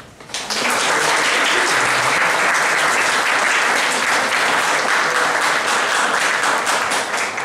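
Audience applauding, the clapping starting about half a second in, holding steady, then easing slightly near the end.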